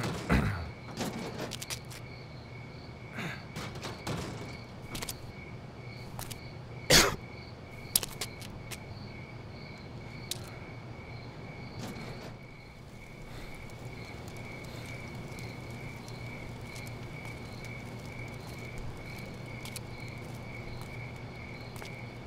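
Crickets chirping in a steady pulsing rhythm. Scattered clicks, knocks and small impacts fall in the first several seconds, the loudest a sharp knock about seven seconds in, and a steady low hum runs underneath.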